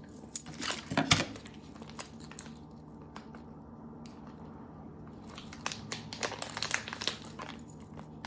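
Plastic packaging from a gingerbread kit being handled, crinkling with light clicks in two spells: about a second in, and again from about five and a half to seven and a half seconds. A faint steady hum lies underneath.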